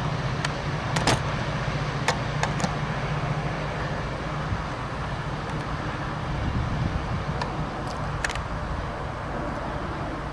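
MP36PH-3C diesel locomotive rumbling steadily as it approaches at the head of a commuter train. The rumble is strongest in the first few seconds, with a few sharp clicks about a second in, around two seconds and near the end.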